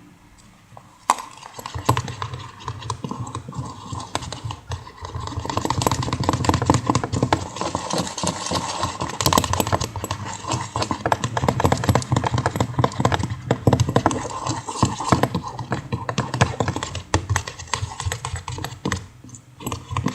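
A stirrer scraping and clicking against the side of a container, mixing glue and baby powder into slime. Quick, irregular clicks start about a second in and go on almost without a break.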